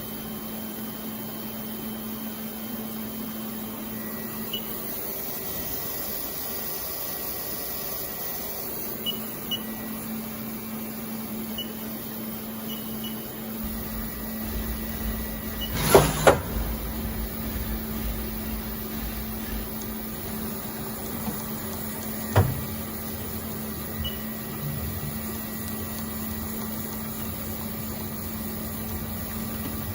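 Haas SL-20T CNC lathe running with a steady low hum and a faint high whine, broken by two sharp knocks, the loudest about halfway through and another some six seconds later.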